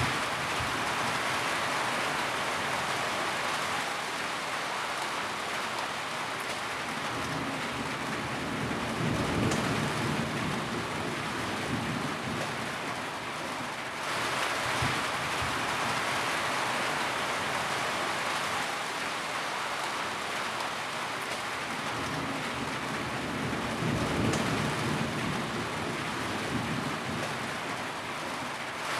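Steady rain falling, an even hiss of many drops. Twice, about fifteen seconds apart, a low rumble swells under it and fades.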